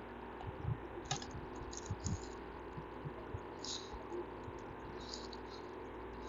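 Faint steady hum of room and recording noise, with a few soft taps and short scratches scattered through it, typical of a stylus writing on a drawing tablet, and some dull low thumps.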